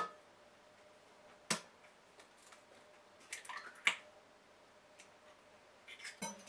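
An egg being cracked into a glass measuring jug of milk: a sharp tap of the shell about one and a half seconds in, then the shell pulled open and the egg dropping into the milk with a small wet splash and a click near four seconds.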